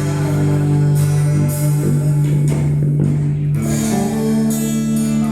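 Instrumental gospel worship music with no singing: guitar-led chords held out, the chord changing about three and a half seconds in.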